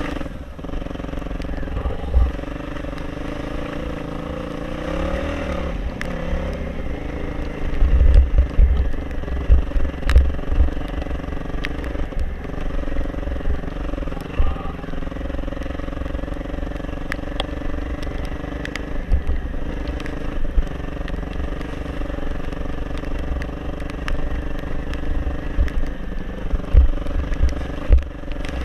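Off-road motorcycle engine running steadily while riding, with a brief rise and fall in engine pitch around five seconds in and frequent low thuds throughout.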